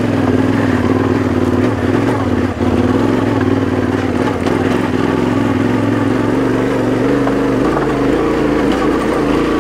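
Dual-sport motorcycle engine running steadily under load in first gear, pulling up a steep climb at nearly constant revs.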